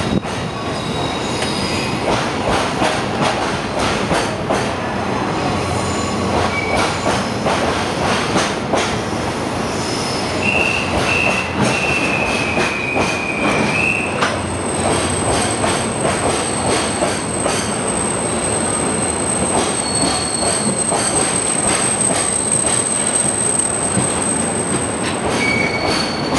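Freight train of container-carrying flat wagons rolling past during shunting, wheels clattering over the rail joints in a steady run of clicks. A high wheel squeal comes in about ten seconds in and lasts some four seconds, then a thin high whine from the wheels holds until near the end.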